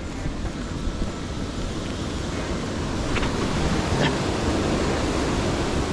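Riding noise from a full-suspension mountain bike: wind rushing over the camera microphone and tyres rolling on a dirt forest track, growing slowly louder as speed picks up, with two short clatters a little past the middle.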